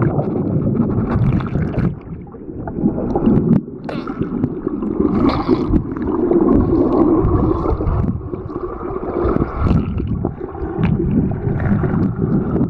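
Underwater noise of pool water and air bubbles picked up by a Nikon AW110 waterproof camera's built-in microphones while submerged: a loud, muffled rumble and churn with the treble cut away and a few short clicks.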